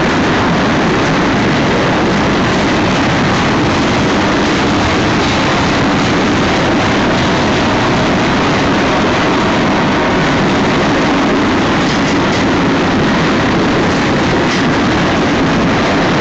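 Double-stack container cars of a freight train rolling past at close range: a steady, loud rumble of steel wheels on the rails.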